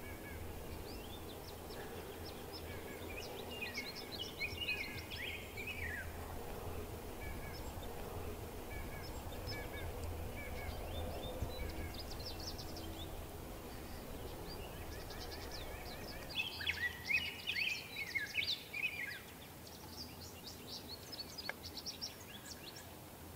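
Wild turkey gobbling twice, a rapid rattling call about four seconds in and again about seventeen seconds in, with short high songbird chirps in between and after.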